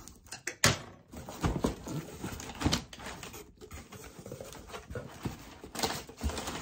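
Cardboard shipping box being opened by hand: flaps pulled back and brown packing paper rustling in irregular bursts, with a loud crackle under a second in.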